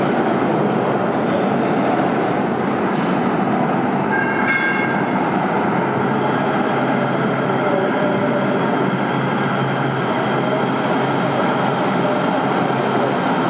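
LA Metro light-rail train running, a loud steady rumble with a low hum underneath. A brief pitched wheel squeal comes about four and a half seconds in, with faint short high squeaks scattered through.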